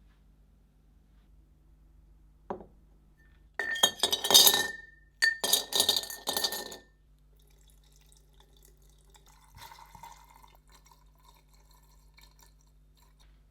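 A single knock, then two clattering bursts of clinking, each with a ringing tone and some splashing, like parts handled in a glass container of liquid; a faint rustle follows.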